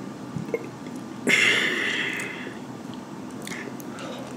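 One loud sniff about a second in, lasting about a second and trailing off.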